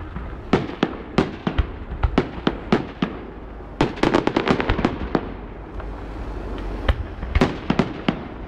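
Aerial fireworks going off: irregular sharp bangs, with a rapid crackling run of about a dozen quick reports about four seconds in and another cluster near the end.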